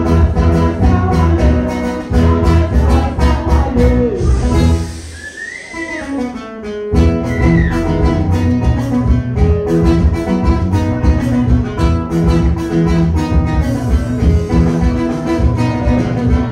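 Band music with guitar and bass over a steady beat; the bass and drums drop out for about two seconds near the middle, with a few sliding high notes, then come back in.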